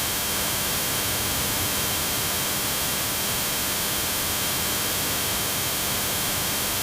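Steady hiss of static-like white noise at a constant level, with a faint thin whistle running through it. It switches on and off abruptly.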